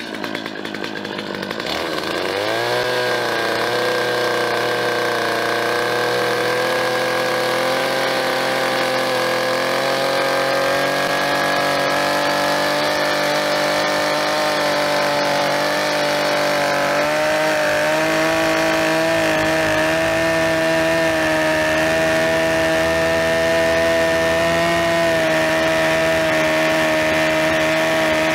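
Stihl petrol chainsaw revving up about two seconds in, then running steadily at high revs while cutting down through a hewn cabin log. Its pitch creeps slowly higher.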